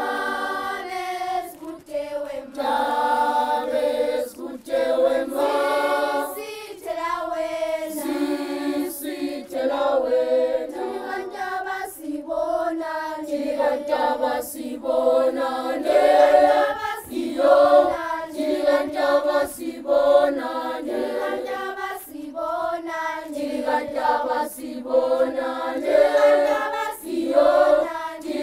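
A group of schoolchildren singing together as a choir, a song sung in continuous phrases.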